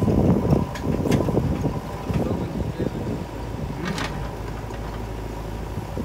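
Diesel engine of a JCB 3DX backhoe loader running as it digs and loads mud, with a few sharp knocks, the clearest about four seconds in. The engine is louder in the first half and eases off after about three seconds.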